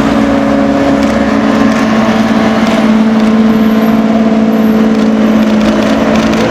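Ferrari F12berlinetta's V12 engine, in Novitec N-Largo trim, running at low, steady revs as the car drives slowly past; a loud, deep, even note that holds about the same pitch.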